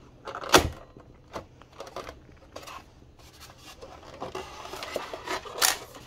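Handling noise from a plastic airsoft M4 in its styrofoam packaging: a sharp plastic click about half a second in, scattered lighter taps, and rubbing and scraping near the end with another sharp click.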